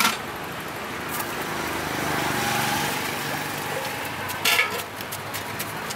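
Street traffic: a motor vehicle goes past, swelling and then fading around the middle, with a short sharp sound at about one second and another at about four and a half seconds in.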